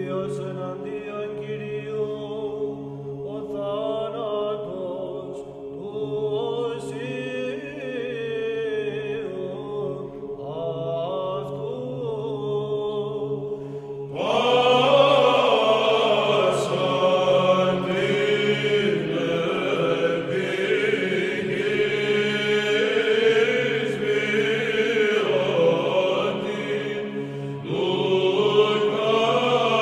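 Background music of Orthodox church chant: a choir sings a slow melody over a held low drone note. The singing grows fuller and louder about halfway through.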